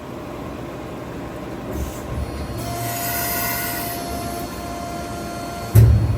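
Machine running with a steady whine and high hiss for a few seconds, then a single heavy thump near the end, consistent with a CNC press brake cycling through a bend.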